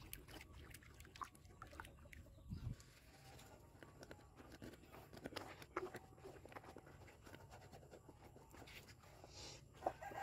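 Near silence with faint scattered clicks and a soft thump about two and a half seconds in, from a wooden stick stirring thick rice-flour batter in an aluminium pot.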